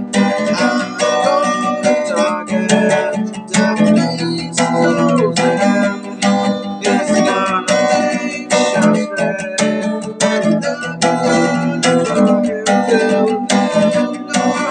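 Acoustic guitar strummed steadily, with a man singing along.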